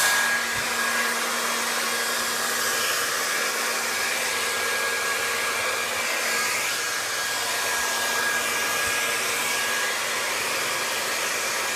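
Hand-held hair dryer running steadily, a constant rush of blown air with a faint steady whine from its motor.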